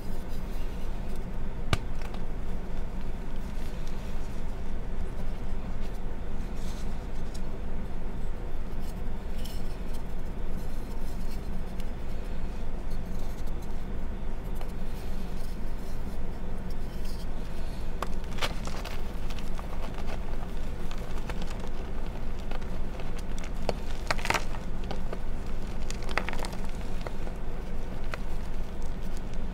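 Reformed gym chalk discs being crushed and crumbled by hand: dry crunching and crackling as the chalk breaks and the powder is squeezed, with a few sharper crunches in the second half.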